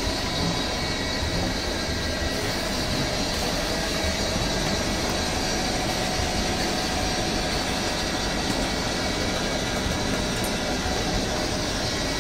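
Sailboat's inboard diesel engine running steadily while the boat moves in to dock.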